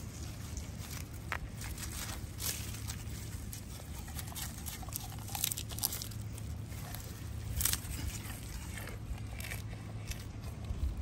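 Sika deer biting and chewing long green leaves held out by hand, a run of crisp, irregular crunches close to the microphone over a low steady hum.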